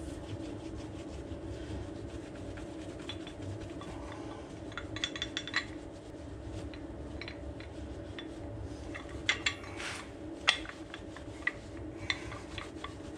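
Shop towel rubbing over a small metal part, with scattered light metallic clinks and taps, the sharpest two about nine and a half and ten and a half seconds in, over a steady low hum.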